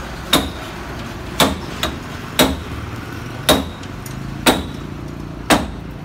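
Hammer blows on the steel of a Kubota rice combine harvester under repair, struck about once a second, six in all. Each blow has a short metallic ring.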